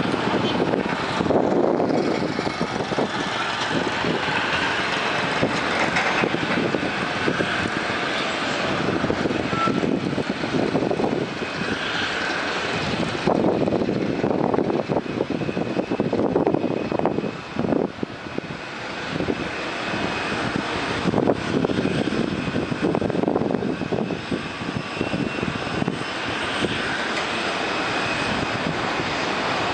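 Jet aircraft noise: a rushing sound that swells and fades, with a faint steady high whine.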